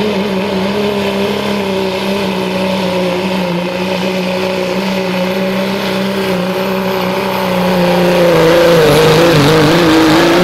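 Pro Stock Dodge Ram pulling truck's turbocharged Cummins diesel running flat out under heavy load as it drags a pulling sled, a steady high-rpm drone. From about eight seconds in it grows louder and its pitch sags and wavers as the sled bears down.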